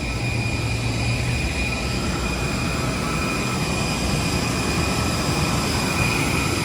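Steady rumbling noise from inside a moving vehicle, with a constant high whine over it.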